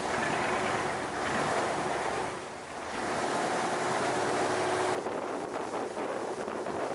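Bumboat under way: the boat's engine running under a steady rush of water along the hull, with wind buffeting the microphone. The sound changes suddenly about five seconds in to mostly wind and splashing water.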